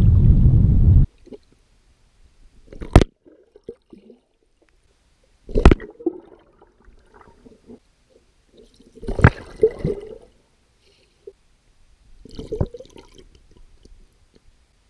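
Wind buffets the microphone for about the first second. Then comes water heard from under the surface: four muffled splashes with bubbling gurgles, about every three seconds.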